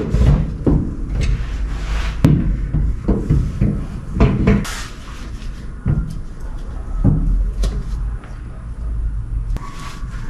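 Irregular knocks, clunks and scrapes of metal parts being handled and shifted into place under a car while a driveshaft is fitted.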